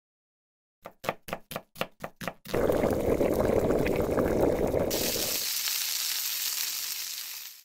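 A quick run of about eight knocks, a knife chopping on a cutting board, followed by food sizzling in a hot pan. The sizzle turns hissier about five seconds in and fades out near the end.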